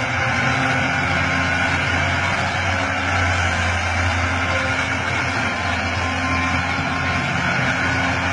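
Excavator's heavy diesel engine running steadily at a constant pitch, with a low hum and no change in speed.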